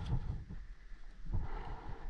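Wind rumbling on the microphone, with a few soft bumps of handling noise, once right at the start and again about a second and a half in.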